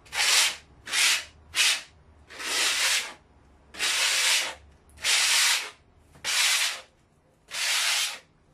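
Sandpaper being rubbed by hand over dried filler on an old plaster wall. There are about eight separate strokes: short, quick ones at first, then longer, slower ones.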